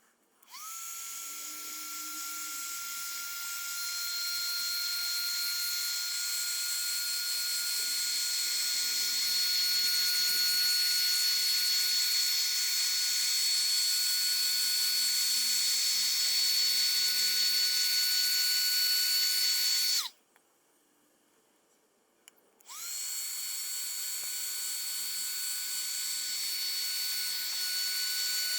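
Electric heat gun running with a steady high whine over a rush of air. It spins up at the start, cuts off about 20 seconds in and is switched back on a couple of seconds later. It is heating a clear plastic sheet so it can be bent into a curve.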